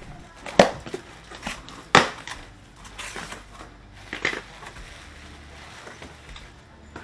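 Handling noises from working on a washer's drain pump: a series of sharp knocks and clattering, with three louder hits spaced about a second and a half apart and smaller taps between.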